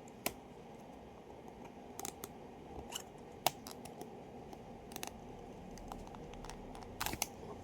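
Irregular small clicks and light scrapes of a pen being pushed and worked inside a 3D-printed plastic holder, with a cluster of sharper clicks near the end.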